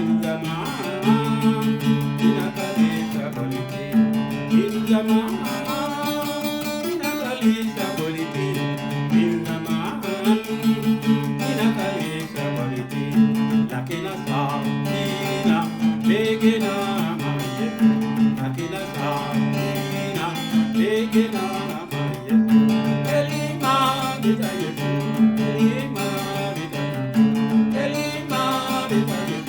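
Music led by guitar with steady plucked and strummed notes, with singing.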